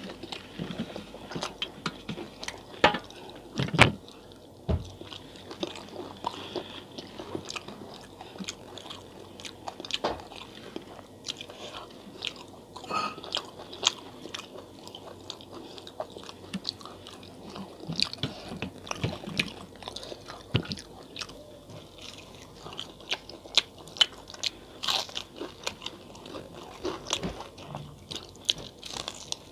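Close-miked eating by mouth: biting and chewing fried fritters, with irregular crisp crunches and wet clicks throughout. A couple of louder bites come about three to four seconds in.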